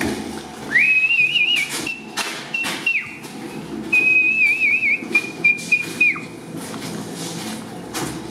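A man whistling to himself: two short phrases on a high note with quick wavers and trills, each about two seconds long. Footsteps and light knocks sound under and between them.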